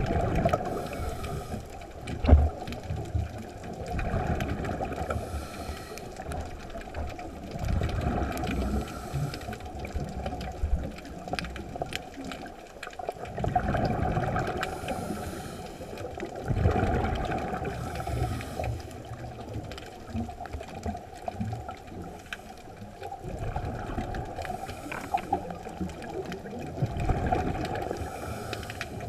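Scuba diver breathing through a regulator underwater: breaths and bursts of exhaled bubbles that swell and fade every few seconds over a steady low rumble, with one sharp knock a couple of seconds in.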